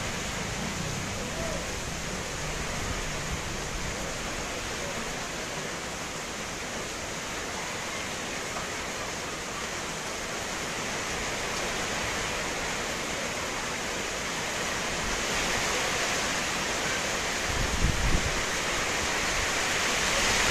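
Steady hiss of heavy tropical-depression rain, a little louder in the last few seconds. A short gust of wind buffets the microphone near the end.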